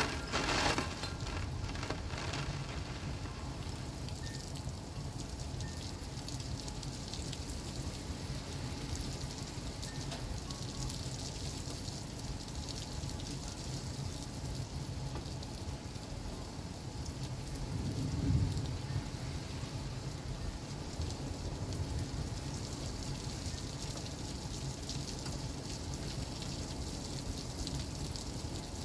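Heavy rain pouring down in a strong wind during a thunderstorm, a steady hiss. A brief low rumble rises and fades about two-thirds of the way through.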